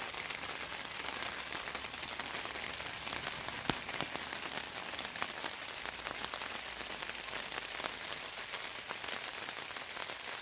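Steady rain falling on a tarp overhead, a continuous hiss dotted with single drops ticking, and one sharper click a little under four seconds in.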